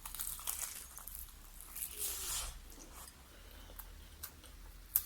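Crispy fried chicken drumstick crunching and tearing as it is bitten and pulled apart, in crackly bursts, the loudest about two seconds in, with a sharp click near the end.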